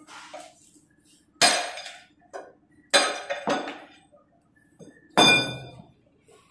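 Hammer striking metal on a stationary diesel engine: four hard blows, each with a short ringing clang, and a couple of lighter knocks between them.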